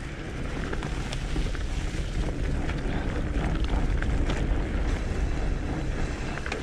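Fatbike riding over a leaf-covered dirt and mud trail: a steady low rumble from the wide 4.6-inch tyres rolling over leaves and soft ground, with scattered crackles and rattles.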